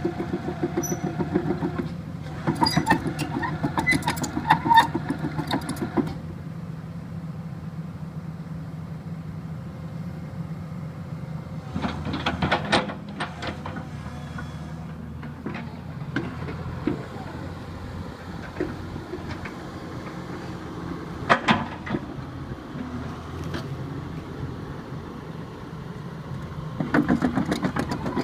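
Daewoo Solar 130 excavator's diesel engine running steadily while the machine is worked. Several louder spells of fast rattling and clanks come and go, a few seconds each.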